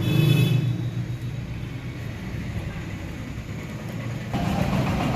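A steady low mechanical hum, with a brief high squeak at the start and a rougher, louder noise joining about four seconds in.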